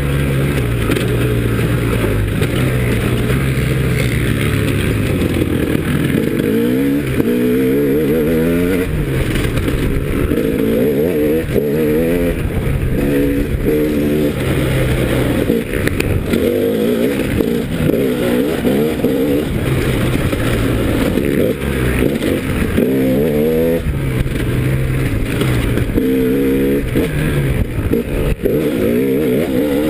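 2011 KTM 300 EXC's two-stroke single-cylinder engine under hard riding, revving up and falling back again and again, its pitch climbing through the revs several times.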